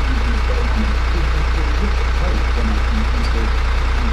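An engine running steadily with a constant low drone and a hiss above it, the level unchanging throughout.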